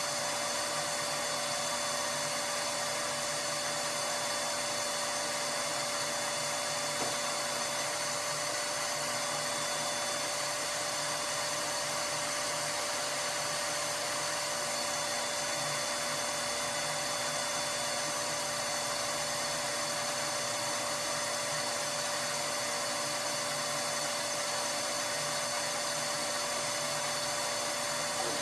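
Soot vacuum running steadily with a constant motor whine, drawing soot out of the carbonized boiler's flue passages.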